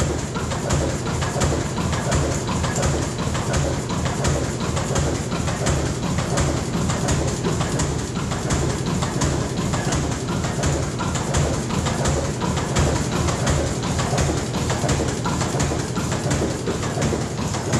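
Burmeister & Wain's 1904 single-cylinder 40 hp diesel engine (Engine No. 1) running steadily with an even, pulsing mechanical beat.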